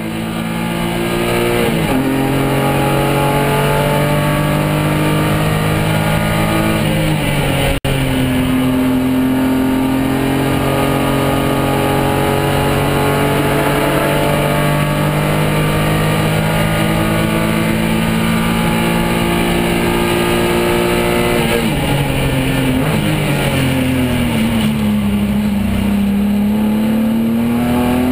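BMW 328i race car's engine heard from inside the cockpit under hard acceleration. The pitch climbs and drops sharply at two upshifts early on, holds high down the straight, then falls at braking about three-quarters of the way through and sweeps back up as the car powers out of a corner.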